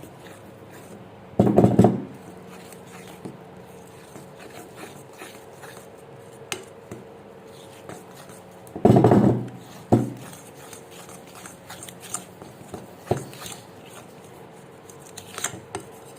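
A fork stirring thick cake batter in a bowl, with small scrapes and clicks of the fork against the bowl. Two loud, short thuds break in about a second and a half in and again about nine seconds in.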